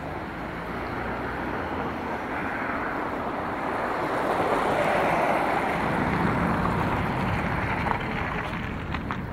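Street traffic: cars passing close by, their tyre and engine noise swelling to a peak about halfway through and fading again.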